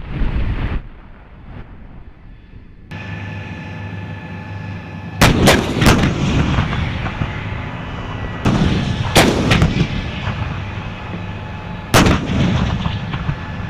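M109 self-propelled howitzer firing: a series of heavy cannon blasts, a couple in quick pairs under a second apart, each with a rolling tail. Under the blasts its engine runs steadily.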